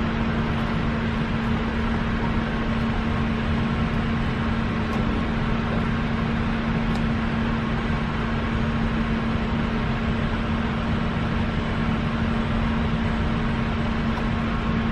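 A steady mechanical hum with a constant low tone, unchanging throughout.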